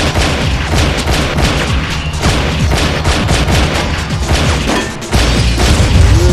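Rapid handgun gunfire in a film soundtrack: many shots in quick succession over a background music score. About five seconds in, a louder surge of sound takes over.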